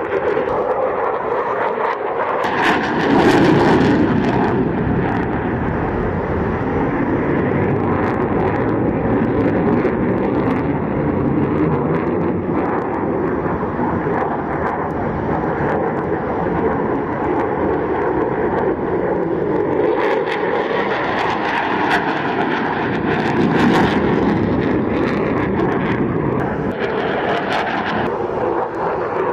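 Aircraft engine noise from an airplane flying by, a loud continuous rush that swells a few seconds in and again later on.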